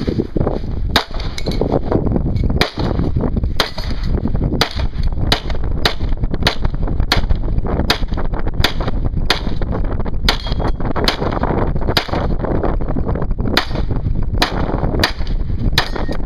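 Semi-automatic pistol fired in a rapid string, about two shots a second with brief pauses between groups, during a steel-target stage.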